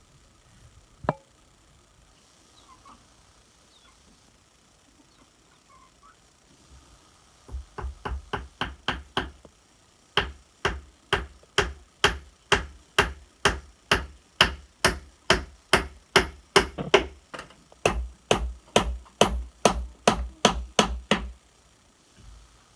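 Repeated chopping or hammering strikes: one knock about a second in, a quick run of blows, then steady blows about three a second that stop shortly before the end.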